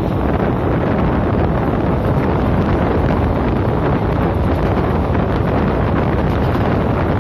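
Wind buffeting the microphone of a phone held out of a moving train, a steady loud rush, mixed with the low rumble of the train running along the track.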